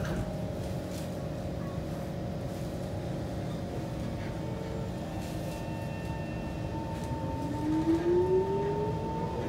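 Inside a Kawasaki C151 MRT train: a steady low rumble of the running train. From about two-thirds of the way in, the traction motors' whine rises in pitch as the train picks up speed.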